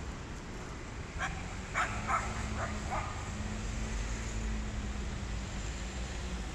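City street ambience: steady traffic rumble with a low engine hum, and a run of about five short sharp yelps between one and three seconds in.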